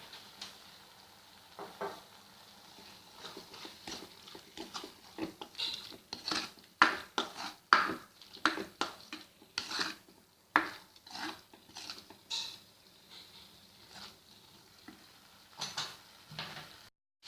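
A spoon stirring thick masala in a pan, scraping and knocking against the pan many times, most busily in the middle, over a faint sizzle.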